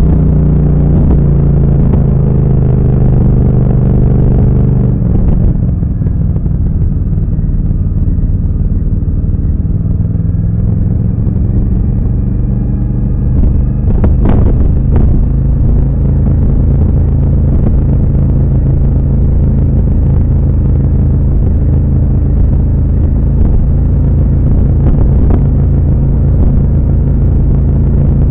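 Yamaha FZ-07's parallel-twin engine through a Two Brothers aftermarket exhaust, heard from the rider's seat while riding. The revs drop about five seconds in, then hold steady at a lower pitch, with a couple of brief clicks near the middle.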